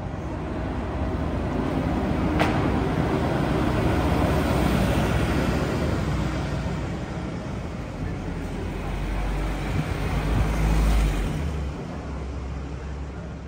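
Double-decker bus engine and road traffic: a broad, even rumble that swells over the first few seconds, with a single sharp click about two seconds in and a heavier low rumble near the end.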